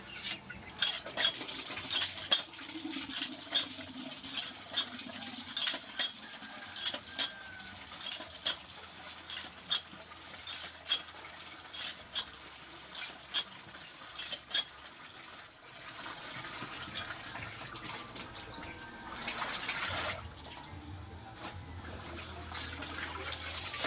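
Cast-iron hand water pump worked by its lever handle: sharp metal clanks at each stroke, one to two a second, over water gushing from the spout into a plastic basin. Past the middle the clanks stop and water splashes and sloshes in the basin as hands work in it.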